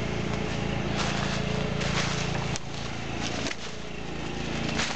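Footsteps crunching through dry fallen leaves, several separate steps, over the steady low hum of a generator engine running for backup power.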